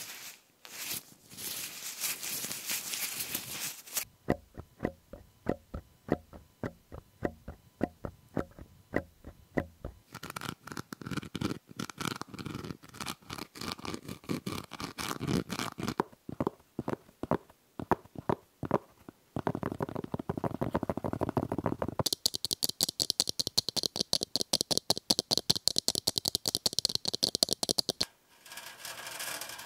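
A quick succession of close-miked ASMR trigger sounds, each lasting a few seconds. First a rubbing sound, then a run of sharp taps, then denser tapping and rustling. After that comes a bright steady hiss made of fast pulses, which gives way to another texture near the end.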